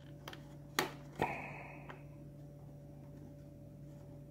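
Small plastic clicks from the fins and slider of a Mercedes W164 dashboard air vent being snapped into their notches: two sharp clicks about a second in, the second trailing off in a short higher-pitched rasp, with a few fainter clicks around them. A steady low hum runs underneath.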